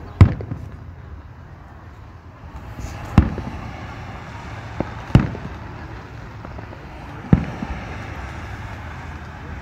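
Aerial firework shells bursting overhead: four loud booms two to three seconds apart, with two fainter pops between them.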